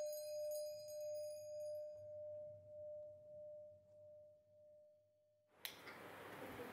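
A single bell-like ringing tone fading slowly, with a gentle wavering pulse, as the last note of the chime intro music dies away. About five and a half seconds in it ends and a click is followed by faint room hiss.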